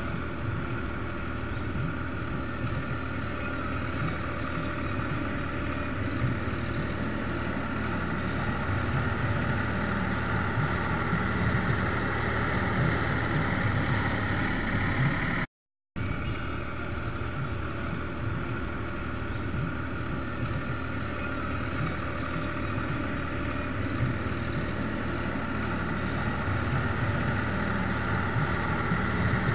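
Sonalika 745 tractor's diesel engine running steadily under load as it pulls an implement through a flooded, muddy field, with a brief dropout about halfway through.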